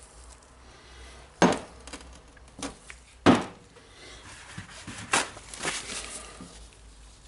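A few sharp clacks of greasy metal hammer-drill parts being handled and set down on a wooden table, the loudest about three seconds in. Near the end, rustling of a paper towel.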